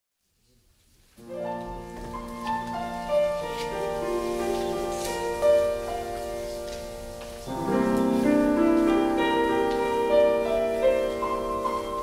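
Piano playing the introduction to a choral song. It starts about a second in, and a fuller, lower-sounding passage comes in about halfway through.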